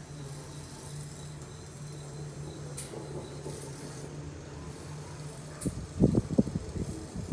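Film soundtrack playing from a TV. First a steady low buzz of insect wings fluttering, then, from just before six seconds in, loud irregular deep rumbles of thunder.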